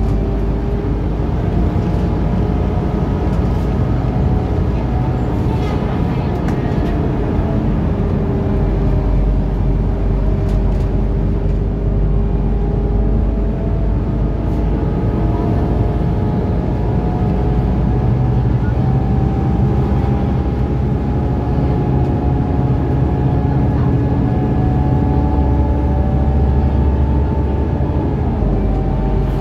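Inside a Scania articulated city bus under way: steady low engine and drivetrain rumble, with tones that drift slowly up and down as the bus changes speed.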